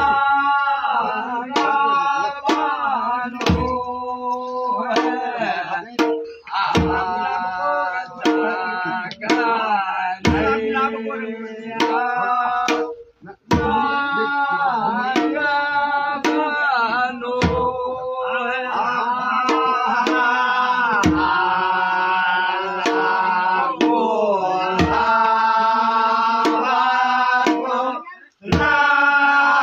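A group of men singing a Kumaoni Holi folk song together, with a dhol drum beating a steady rhythm and a deep bass stroke about every three and a half seconds. The singing breaks off briefly twice.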